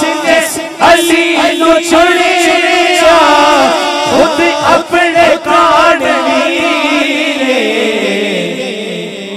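Male voices singing a naat without instruments: a lead voice's wavering, melismatic line over a low held drone from the backing singers. The drone steps down lower near the end.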